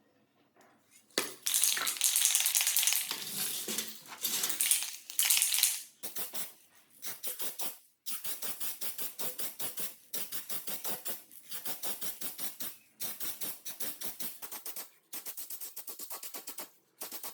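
Hand work with an abrasive or file on metal: a few seconds of loud continuous scraping, then rapid back-and-forth strokes at about five a second, steady to the end.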